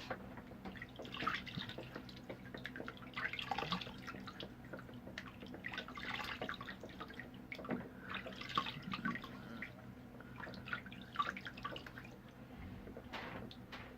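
Water splashed onto a face by hand, splashing and dripping in irregular bursts, with a steady low hum underneath.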